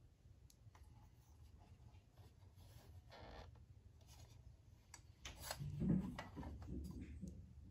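Faint handling noise of a desk lamp as its arm is tilted by hand: light rubbing and small clicks, with a louder knock about five and a half seconds in.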